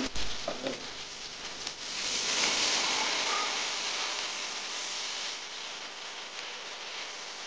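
Food sizzling in a pan of hot oil, a steady frying hiss that grows louder about two seconds in and eases a little after five seconds. A few light knocks come near the start.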